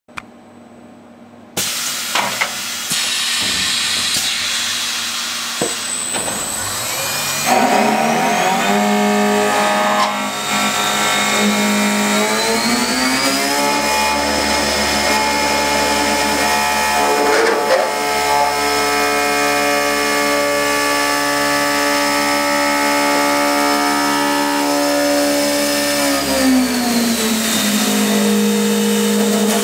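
GH-Tec Challenge 2000 CNC wood copying lathe running, its cutters cutting into a turning wooden blank with a steady hissing cut noise. A motor whine in several tones rises in pitch several seconds in, holds steady, and falls away again near the end.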